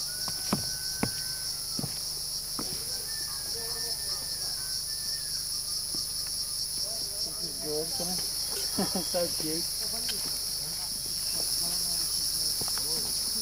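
Steady, high-pitched shrilling of a chorus of forest insects, with a few sharp clicks in the first couple of seconds.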